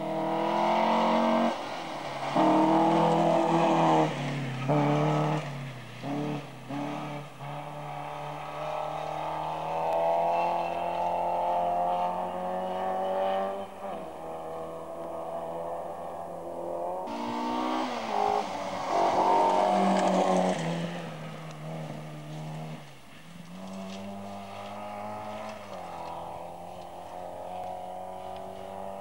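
Rally car engine at full throttle on a gravel stage, revving hard through the gears, its pitch climbing and then dropping at each shift or lift. It is loudest about two to four seconds in and again around eighteen to twenty seconds, then runs on more quietly near the end.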